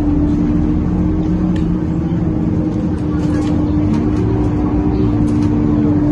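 Inside a moving Scania K230UB Euro V bus: the diesel engine's low rumble under a loud, steady whine at one pitch from the radiator cooling fan.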